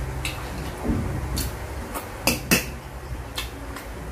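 A metal spoon scraping and clinking against a dish while scooping rice, with scattered light clicks. Two sharp clinks a little past halfway are the loudest. A steady low hum runs underneath.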